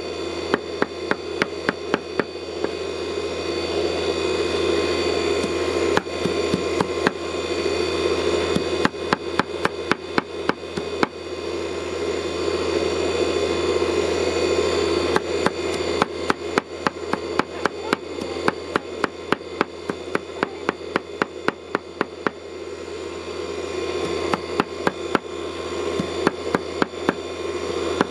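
Steel cleaver chopping leafy greens against a board in quick, even strokes of about four to five a second, with a few short pauses, over a steady hum.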